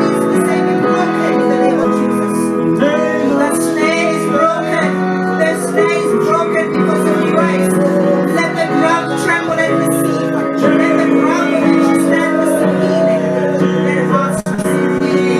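Worship music: sustained keyboard chords with singing over them, and a brief drop about fourteen and a half seconds in.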